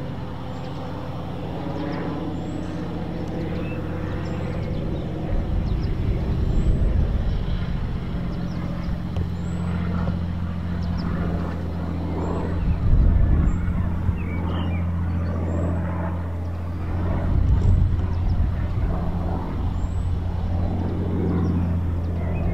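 Supermarine Spitfire Mk IIa's Rolls-Royce Merlin V12 running at low power on the landing approach: a steady, deep drone that grows slowly louder as the aircraft nears. The engine is still running normally here.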